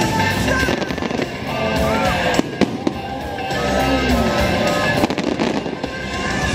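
Fireworks show soundtrack music playing, with fireworks going off as deep booms and sharp bangs. A pair of sharp bangs comes about two and a half seconds in.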